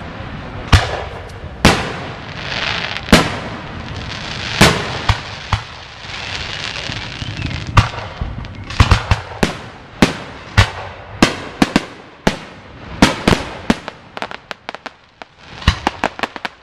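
Aerial fireworks bursting overhead: a string of sharp bangs, with a hissing crackle between them in the first half. A rapid volley of bangs follows in the second half, then a brief lull and more bangs near the end.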